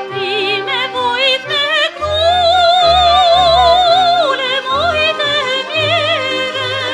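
Operatic singing with wide vibrato over accompaniment, the voice holding one long note near the middle before moving on through shorter phrases.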